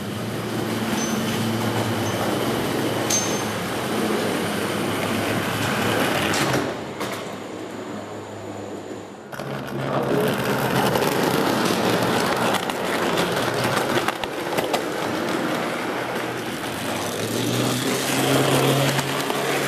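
O-scale model trams running on the layout: their small electric motors hum steadily, with many fine clicks from the wheels on the track. The sound drops quieter for a few seconds near the middle.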